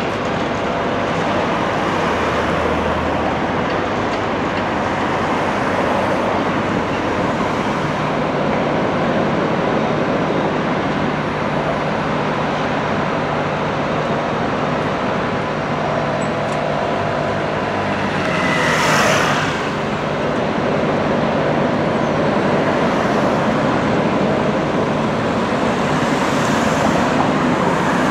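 Steady road traffic noise with a faint low engine hum that comes in about eight seconds in, and a brief louder rush of noise about two-thirds of the way through.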